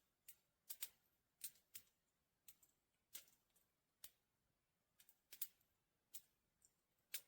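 Faint, short clicks and snaps at irregular intervals, about a dozen in all, over near silence.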